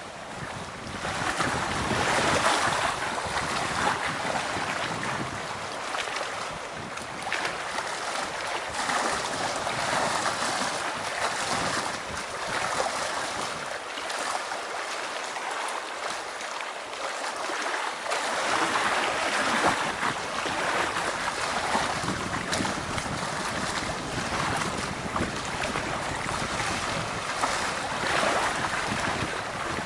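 Wind gusting through pine trees over the choppy water of a lake, with small waves lapping at the shore; the rush swells and eases every few seconds.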